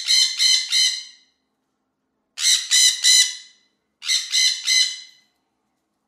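Parrot squawking in three quick runs of three or four harsh calls each, with short silent gaps between the runs.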